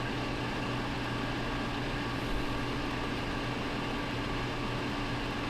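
Clothes dryer running in the background: a steady, even hum and whirr.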